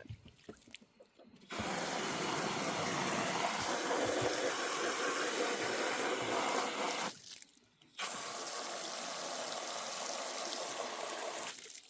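Running water rinsing out a chicken's water bowl, a steady rush in two spells, the first about five and a half seconds long, then a brief stop, then about three and a half seconds more.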